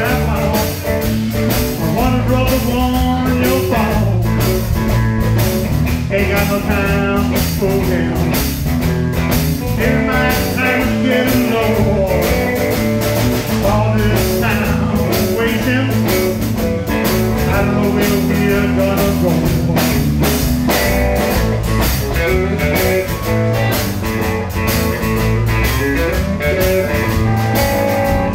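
Live blues-rock band playing: electric guitar, bass guitar and drum kit with a steady beat.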